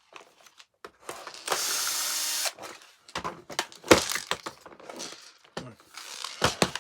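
An electric screwdriver runs for about a second, backing a screw out of the plastic cover of a vacuum cleaner's floor head, amid clicks and knocks of screws and plastic parts being handled, with a sharp knock about four seconds in.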